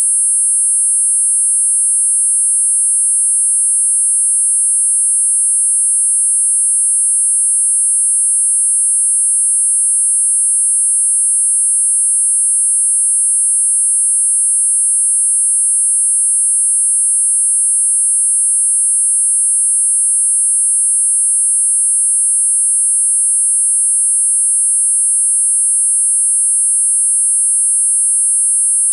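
Four synthetic sine tones at 8.5, 9, 10 and 10.5 kHz sounding together as a steady, very high-pitched tinnitus-masking tone cluster.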